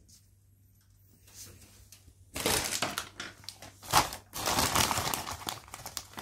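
Paper and papier-mâché pulp being handled: a run of crunchy crumpling and rustling starting about two and a half seconds in, with one sharper crack near the middle.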